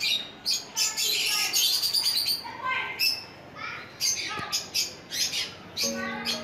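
Many caged lovebirds chirping and squawking, a dense run of short shrill calls overlapping one another. Background music with held notes comes in near the end.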